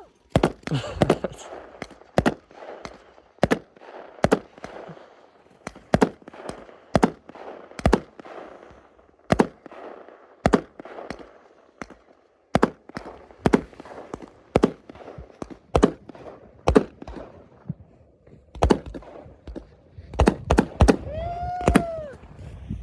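Fireworks exploding in a string of sharp bangs, each with a short echo, roughly one a second and bunching into a quicker run near the end. Near the end a short wail rises and falls over the bangs.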